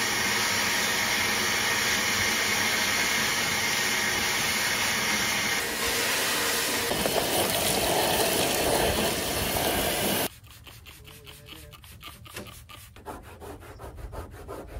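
Wet/dry shop vacuum running steadily, its hose sucking up grit and construction dirt from the van's floor and door track, then cutting off abruptly about ten seconds in. After that, a cloth rubbing over the plastic step sill in quick repeated strokes.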